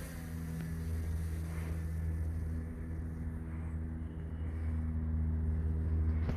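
Vehicle engine running steadily: a low, even drone.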